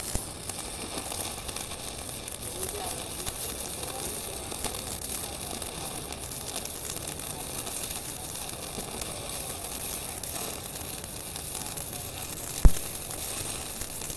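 Stick (MMA) welding arc burning a 4 mm electrode, powered by a TOPGUN MIG 315VS welder: a steady crackling sizzle. A single sharp knock comes near the end.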